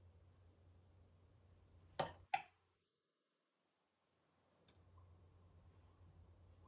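Faint room tone with a low steady hum, broken about two seconds in by a metal spoon clinking twice against a bowl, a third of a second apart. Soon after, the sound drops out completely for about a second before the hum comes back.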